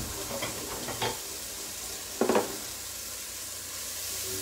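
Onion frying in olive oil in a pot, sizzling steadily, while a spoon stirs it and knocks against the pot a few times, loudest about two seconds in.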